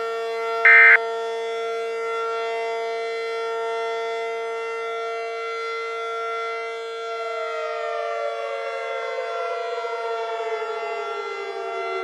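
Civil defense siren sounding a steady tone, part of a mock Emergency Alert System broadcast. About a second in, a short buzzy data burst plays, the last of three EAS end-of-message tones. From about seven seconds in, a second pitch slides steadily down as the siren winds down while the steady tone holds.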